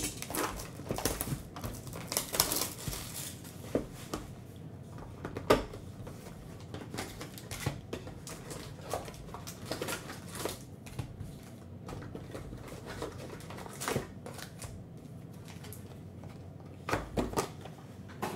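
Foil Panini Prizm Draft Picks card packs crinkling and tapping as they are lifted out of a cardboard hobby box and stacked, with occasional sharper knocks.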